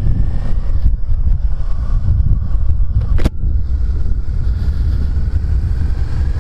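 Wind buffeting a microphone inside a motorcycle helmet while riding, over the Suzuki SVF650 Gladius's 645 cc V-twin engine running beneath. A single sharp click a little past three seconds in.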